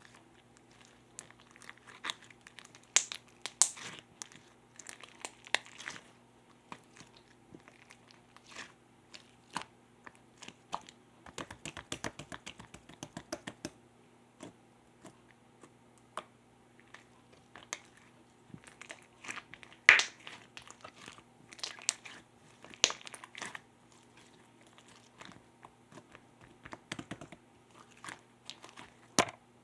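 Purple pearl slime being squished and poked by hand: irregular sticky clicks and crackles, with a fast run of small pops about a third of the way in. A faint low hum runs underneath.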